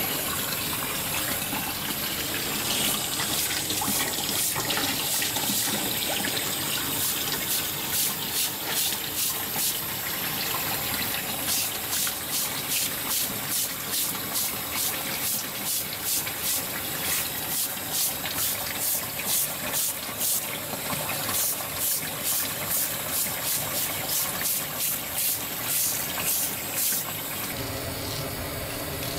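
Stainless-steel scouring pad scraped back and forth over a fish's skin in quick rhythmic strokes, about two a second, to scrub off scales and slime, over a steady rush of running water. The scraping stops near the end.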